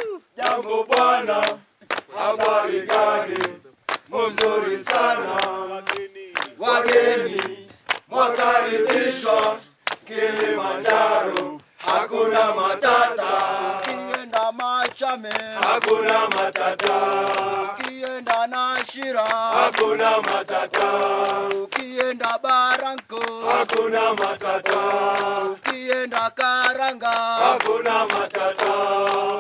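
Tanzanian porters and guides singing a chant together in chorus, with mainly men's voices and hand-clapping along.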